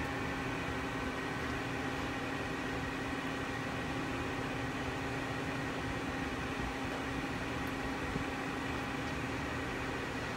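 Hurco TM6 CNC lathe, powered up and running, giving a steady hum with a few fixed tones that do not change.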